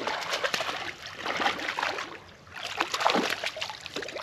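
Water splashing in irregular bursts as a hooked bass thrashes at the surface beside a kayak while it is reeled in; the splashing eases off about two seconds in, then comes again.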